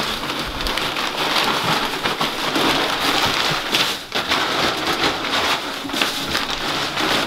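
Loose wood chips pouring out of a bag and spreading over a coop floor: a steady, rain-like rustling hiss with a brief dip about four seconds in.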